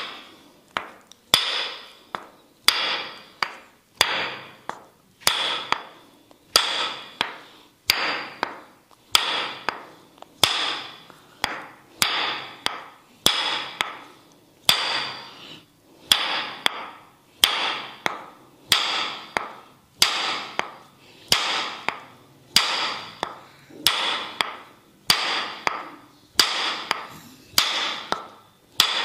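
Tok sen massage: a wooden mallet tapping a wooden stick against the body in a steady rhythm, a little over one strike per second, each strike ringing briefly.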